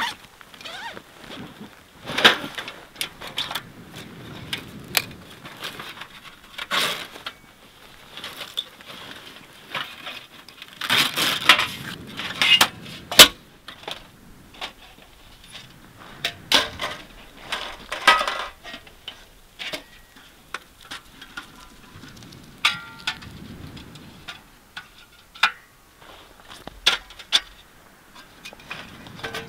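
Camp gear being unpacked and set up by hand: fabric packs rustling, and metal gear clicking and clattering in irregular bursts, loudest a little before and after the middle.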